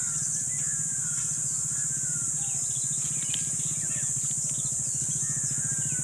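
A motorcycle engine running steadily with an even low pulse, with birds chirping and a steady high-pitched insect drone over it.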